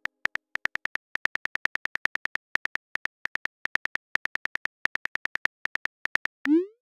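Simulated phone keyboard typing clicks from a texting app: short, high ticks in quick runs of several a second with brief pauses. About six and a half seconds in, a quick rising swoosh plays as the message is sent.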